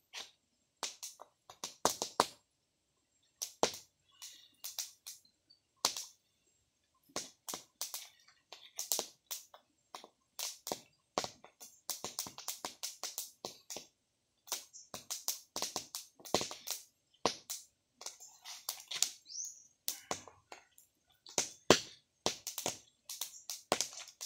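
Open fire of dry leaves and sticks, with ears of corn roasting in it, crackling and popping in sharp irregular snaps, sometimes several a second, with brief lulls.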